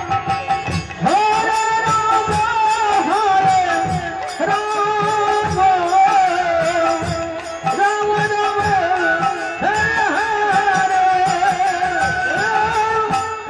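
Bengali devotional kirtan music without words: a held melody line that slides up into each long note, over the steady strokes of a khol drum and a bright ticking beat.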